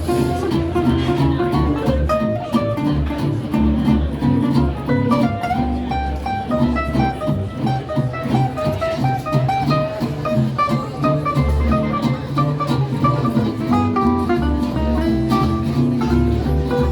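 Jazz music led by a guitar playing a melody over a bass line.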